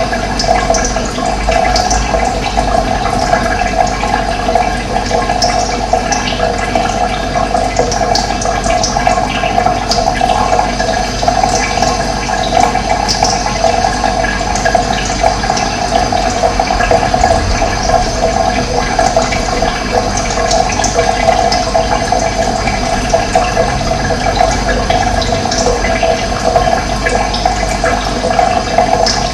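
Running water rushing in a steady, even flow.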